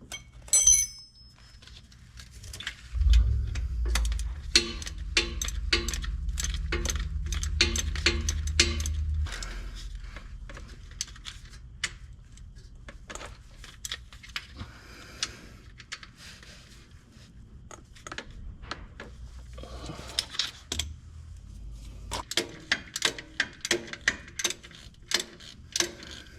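Metal clinks of hand tools on a pickup's starter bolts, with a ratchet clicking in runs of evenly spaced strokes. A low rumble runs from about three seconds in until about nine seconds.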